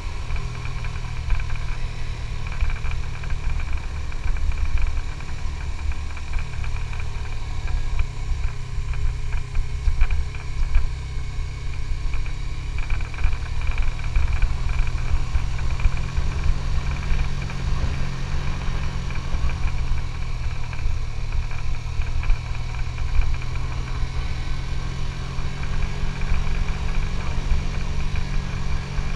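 Suzuki GSX-S150's single-cylinder engine running steadily during a ride, its pitch shifting slightly a few times, over a steady low rumble.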